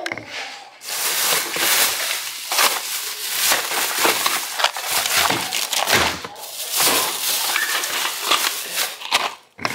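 Close-up rustling and crinkling of plastic packaging or a plastic bag being handled, a dense run of crackly rustles that starts about a second in and stops just before the end.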